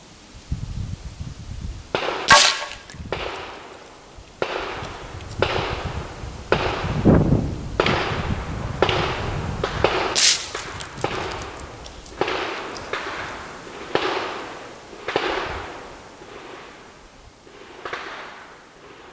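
A .22 rimfire rifle fired shot after shot, about one a second, more than a dozen shots, each with a short ringing tail. Two of them, about two seconds in and about ten seconds in, are sharper and louder than the rest.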